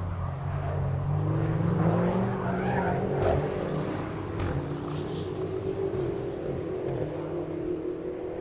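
BMW X6 M's twin-turbo V8 engine running under acceleration, its pitch rising over the first couple of seconds and then holding at a steadier speed.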